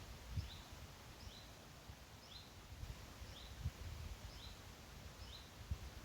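A small songbird repeating a short two-note call, a higher note followed by a slightly lower one, about once a second, over faint woodland background. Three soft low thuds are heard: one near the start, one past halfway and one near the end.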